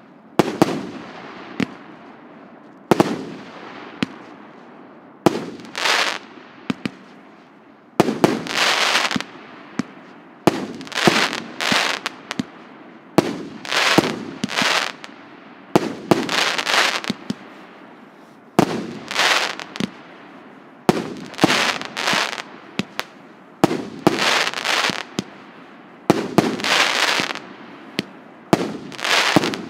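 A 100-shot, 1.5-inch fireworks cake firing shot after shot: sharp bangs roughly every one to two seconds at an uneven pace, each followed by a short noisy tail as the shell breaks.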